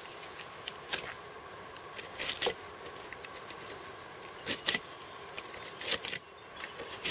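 Mora Companion fixed-blade knife shaving curls off a stick of bone-dry wood: a series of short, sharp scraping strokes, several coming in quick pairs.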